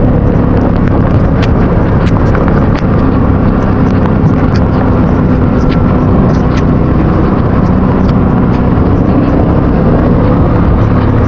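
Motorcycle engine running steadily while riding, picked up by an action camera's built-in microphone under a loud, steady rush of wind and rain noise. Scattered sharp ticks run through it, raindrops hitting the uncased camera.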